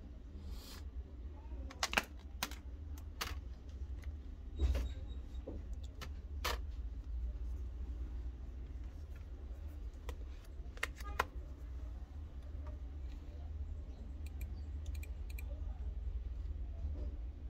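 Irregular clicks and taps of a computer keyboard and mouse, most in the first seven seconds and a pair near eleven seconds, with fainter ticks later, over a steady low hum.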